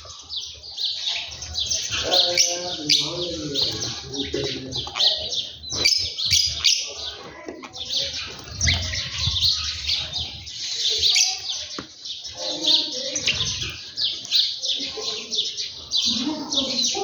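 Many small birds chirping continuously in a dense, overlapping chatter, with some lower-pitched calls mixed in now and then.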